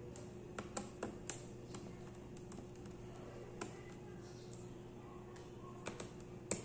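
Small precision screwdriver clicking and tapping on the screws of a laptop's aluminium bottom cover as they are undone, a few scattered sharp clicks with a gap in the middle, over a faint steady hum.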